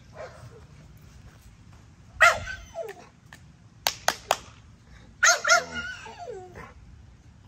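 American Bully dogs barking and yelping. One bark comes about two seconds in, and a longer run of yelps falls in pitch about five seconds in. Three short sharp clicks come between them.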